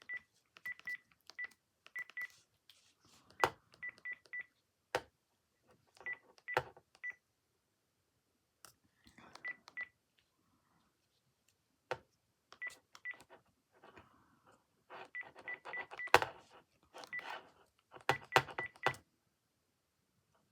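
Panasonic KX-PRW120 cordless handset keypad being pressed: each press gives a click and a short high beep, in quick runs with pauses, as a name is typed letter by letter into the phone book.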